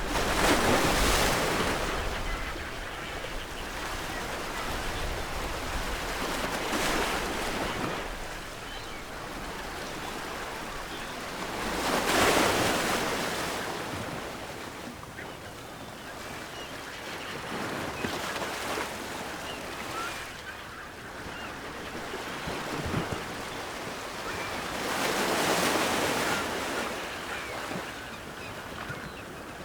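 Ocean waves breaking on a shore, each wave swelling into a rush of surf and washing back, five in turn, a few seconds apart; the loudest come about a second in and about twelve seconds in.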